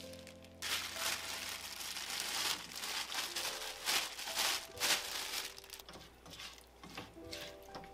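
Thin plastic bag crinkling and rustling as salted cucumber slices are shaken out of it into a frying pan, then a spatula stirs them in with the chikuwa. It starts suddenly about half a second in and grows quieter in the second half.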